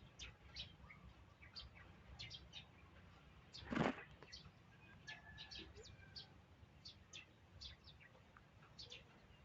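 Small birds chirping repeatedly in short, high notes, with one louder, brief sound about four seconds in.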